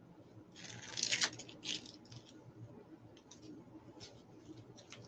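Faint crinkly rustling of deco mesh being handled and scrunched, in a cluster of short bursts about a second in and a few smaller ones later.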